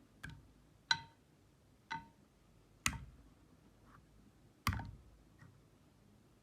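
Five or six sharp clicks or taps of a hard object, spaced irregularly, each with a brief ringing tone.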